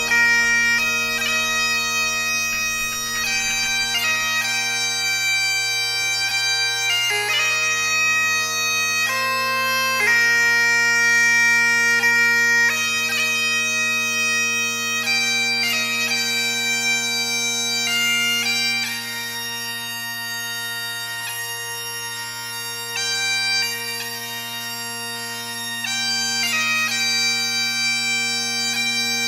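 Bagpipes playing a melody over steady, unchanging drones, a little quieter for a few seconds past the middle.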